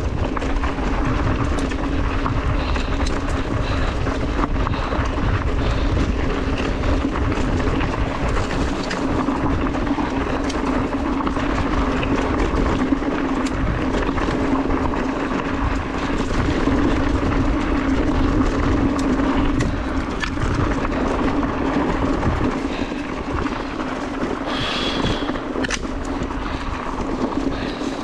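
Specialized Turbo Levo electric mountain bike rolling downhill on a rough dirt trail: continuous tyre rumble with rattles and small knocks over stones, under a steady hum. A brief high-pitched squeal comes near the end.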